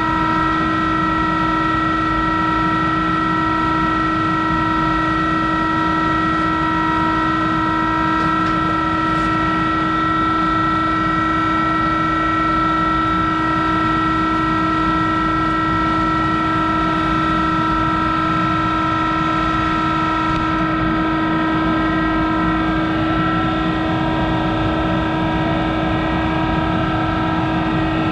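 Monarch 10EE lathe running with a steady machine whine while a knurling tool rolls a diamond knurl into an aluminum knob blank.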